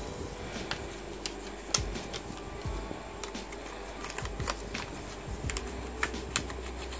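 Scattered light clicks and taps of plastic as the loosened plastic back cover of a Poco X3 NFC phone is handled and lifted off the phone body, one click sharper about two seconds in.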